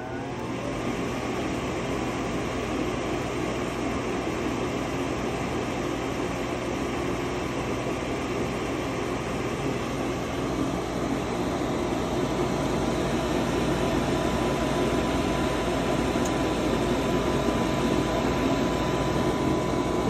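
Gas furnace draft inducer motor coming up to speed at the start, then running with a steady whir and a thin whine, growing slightly louder. It is the furnace's start-up purge before the hot surface igniter lights, the furnace working again once a blown 3-amp control fuse was replaced.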